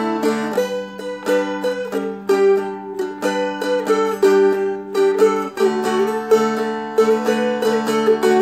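Seagull Merlin, a four-string dulcimer-style instrument, picked: a melody of separate notes, a few a second, rings over a steady drone, moving through D, G and back to D.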